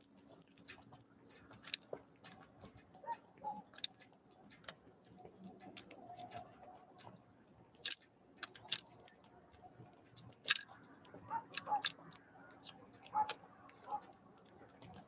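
Small birds at a feeder pecking: irregular sharp taps and clicks, several a second at times, with a few short faint call notes.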